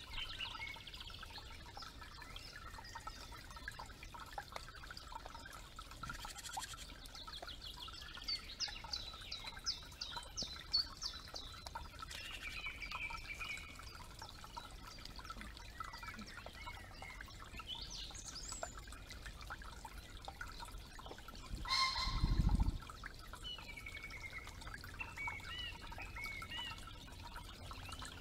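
Woodland birds singing and calling in short chirps and trills over a faint trickle of creek water, with one brief low rumble, the loudest sound, about three quarters of the way through.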